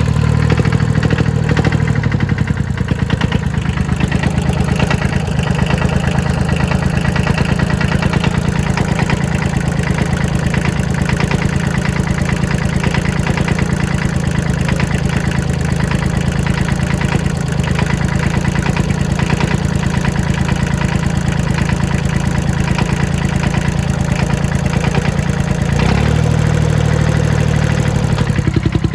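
An engine running steadily and loudly at idle, with a rapid, even beat of firing pulses and a brief change in its note about 26 seconds in.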